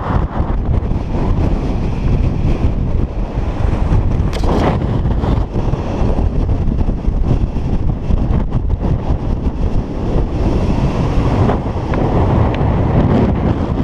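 Strong wind buffeting the microphone: a loud, low, gusting rush with no let-up.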